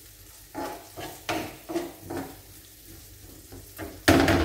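Onions frying in oil in a frying pan, stirred with a metal spoon: a few short scrapes of the spoon across the pan over a low sizzle, then a loud clatter of the spoon against the pan near the end.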